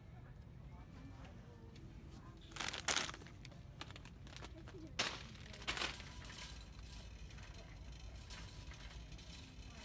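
Plastic packaging crinkling in short bursts, one near three seconds in and two more around five to six seconds, over the low steady hum of a shop.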